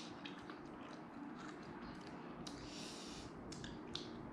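A person chewing food, with scattered faint clicks and a brief soft hiss about three seconds in.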